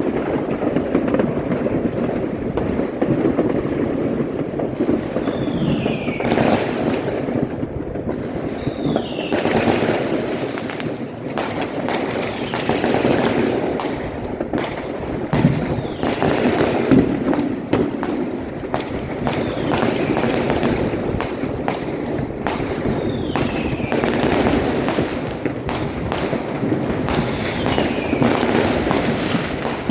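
Dense New Year's fireworks: a steady barrage of bangs and crackling firecrackers, with whistling fireworks gliding down in pitch several times.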